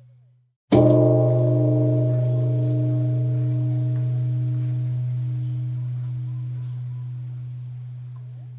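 Large pagoda temple bell struck once, about a second in, after the previous stroke has faded out. It rings on with a strong deep hum and several higher overtones, slowly fading.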